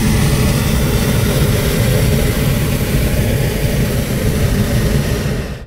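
Hot-air balloon's propane burner firing: a loud, steady roar that cuts off suddenly near the end.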